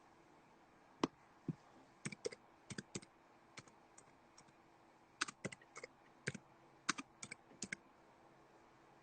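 Irregular clusters of short, sharp tapping clicks, typing on a phone's screen or keys.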